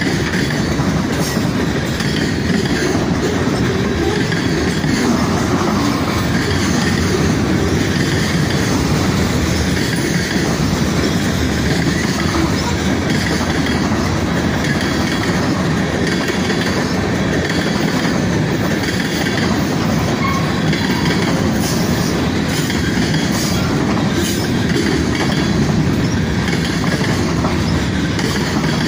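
Freight cars of a long Norfolk Southern mixed freight (autoracks, tank cars, boxcars) rolling past close by at speed, a steady, loud wheel-on-rail noise that holds unchanged throughout.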